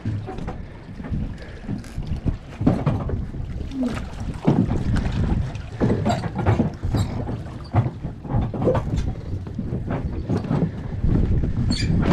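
Wind buffeting the microphone over choppy water slapping against a boat hull and a floating dock, with irregular splashes and knocks.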